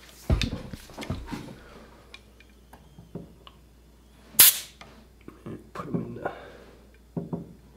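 Pneumatic pin nailer firing once, a single sharp pop about four and a half seconds in, as it pins a strip of bead moulding to wood. Lighter knocks and clicks come from the tool and its air hose being handled.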